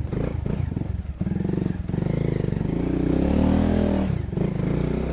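Motorcycle engine running, its pitch rising as it revs up about three seconds in and falling back a second later.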